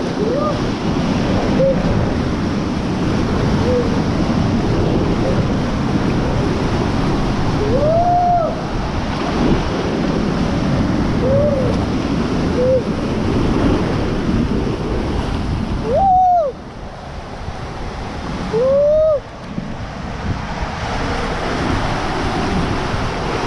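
Water rushing and splashing around an inner tube sliding through a ProSlide Tornado tube slide and its funnels, with wind noise on the microphone. Several short squeals that rise and fall in pitch come every few seconds.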